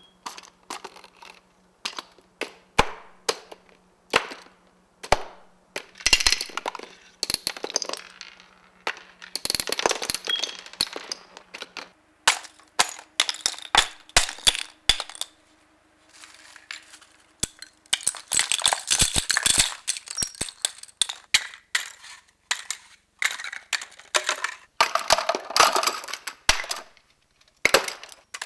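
Small household objects dropped one after another onto a growing heap on a hard tabletop: a long run of sharp clattering and clinking impacts in quick clusters with short pauses. The clinks include small glass bottles landing on the pile; wooden sticks and cardboard tubes come down later.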